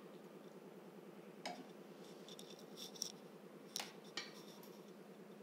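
A steel ladle clinking lightly against a steel saucepan and serving bowl while curry is scooped out: a few sharp clinks and small ticks over a faint steady hum.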